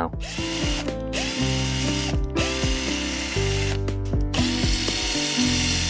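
A power drill drilling out the seized gear-shift lever of a small outboard motor, running in stretches with three brief stops, under background music.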